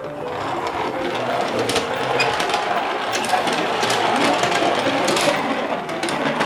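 Toy dump truck's wheels rolling across a hard play mat as it is pushed by hand, making a steady rattling whir.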